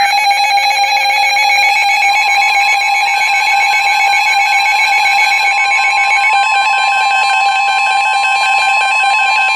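Weather radios sounding electronic alert tones for a tornado warning: several steady alarm tones at different pitches with a fast pulsing beep. About two seconds in, the NOAA Weather Radio warning alarm tone joins and holds steady.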